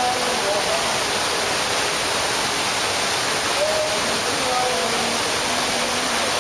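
Steady rushing hiss of fountain or pool water, with faint distant voices.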